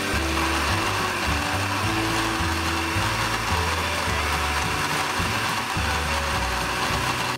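Countertop blender running steadily, puréeing prawns with water and seasonings into a thick paste. It cuts off right at the end.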